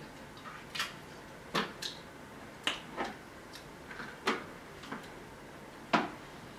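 Snow crab leg shells cracking and snapping as they are broken apart by hand: a series of sharp, irregular cracks, the loudest near the end.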